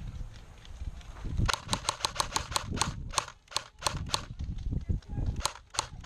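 Airsoft gun firing a rapid string of sharp cracks, about five or six a second, starting about a second and a half in. It pauses for about a second, then fires again near the end, over low thumps and rumble.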